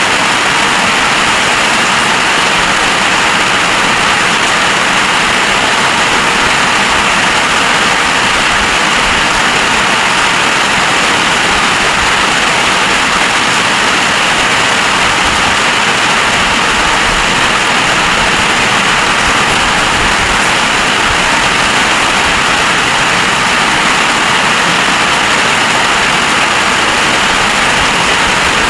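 Heavy rain pouring down in a storm, a loud, steady hiss without let-up.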